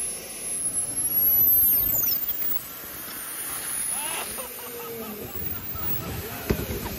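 Small model jet turbine (a size-60 RC turbine of about 13 lb thrust) running with a very high-pitched whine. The pitch climbs about two seconds in, holds, and starts to drop right at the end.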